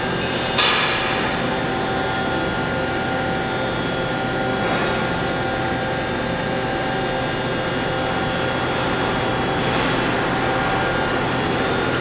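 Haas VM3 vertical machining center running, its spindle turning at 7,500 RPM while the axes move: a steady mechanical whine with several held tones over a hiss. A short burst of noise comes about half a second in.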